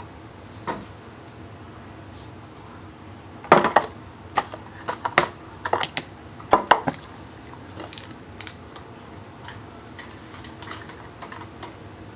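Dishes and utensils being handled on a kitchen counter: one knock about a second in, then a run of clattering clinks and knocks from about three and a half to seven seconds in, then lighter taps.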